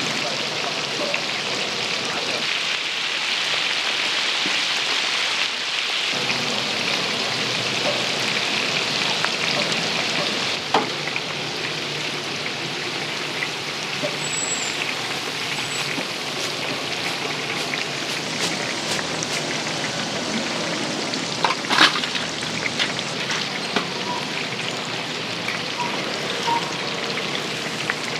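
Hot oil sizzling steadily as food deep-fries, with a few sharp clicks and knocks.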